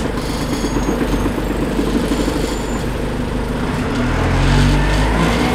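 Dennis Dart MPD bus's rear-mounted diesel engine being worked hard, heard from inside the saloon along with rattling from the bodywork. About four seconds in the engine note turns deeper and steadier and grows louder.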